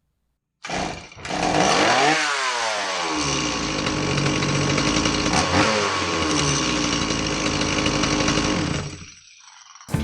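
Stihl MS170 two-stroke chainsaw engine running after its choke linkage repair. After a short first burst it runs fast, the revs fall away over a couple of seconds into a steady idle with one brief blip, and it stops shortly before the end.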